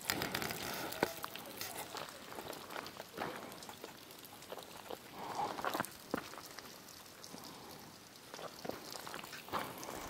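Footsteps crunching and scuffing irregularly on the ground, faint.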